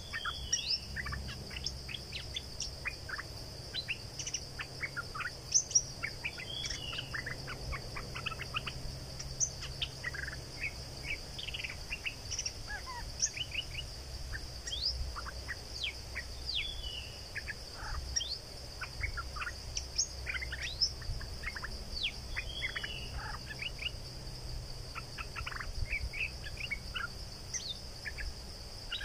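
Stripe-throated bulbul calls: many short chirps, with a short falling phrase that repeats about every six seconds, over a steady high-pitched insect drone.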